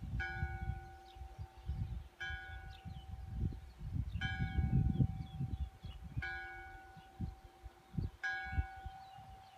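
A bell tolling slowly, one stroke about every two seconds, each stroke ringing on until the next. Wind rumbles unevenly on the microphone underneath.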